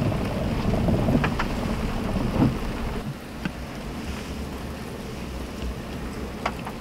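Rain and road noise heard from inside a moving vehicle's cabin: a low steady rumble that quietens about three seconds in, with a few sharp ticks scattered through.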